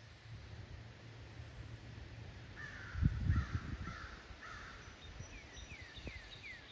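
A bird calls four times in a harsh, evenly spaced series, with a low thump under the second call. Near the end, another bird gives a few short, falling whistled notes.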